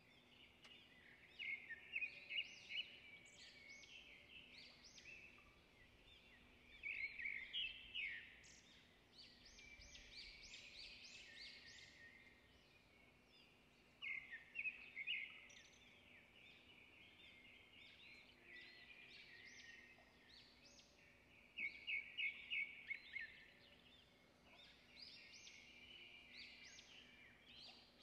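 Birds chirping in bursts of quick repeated high notes, over a faint steady hum.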